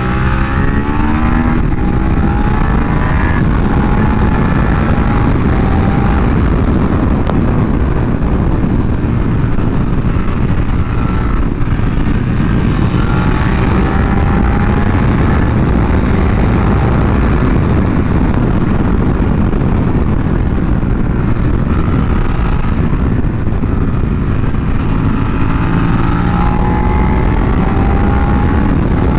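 Suzuki SV650X's 645 cc V-twin through a Yoshimura exhaust, running under way on the road, its pitch rising and falling as the throttle opens and closes through corners, over a steady rush of wind noise.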